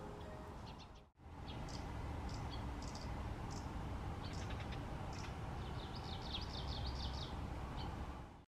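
Japanese leaf warbler calling in a tree, with scattered short high notes and then a fast run of repeated high notes near the end, over a low outdoor rumble.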